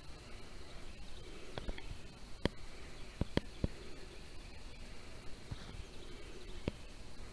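Quiet outdoor ambience with a faint, steady high-pitched tone, broken by about six sharp clicks or snaps, three of them close together in the middle.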